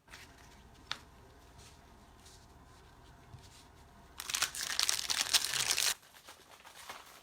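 A pack of baseball cards being torn open: about two seconds of loud crinkling and tearing of the pack's wrapper, starting about four seconds in. A single light click comes about a second in.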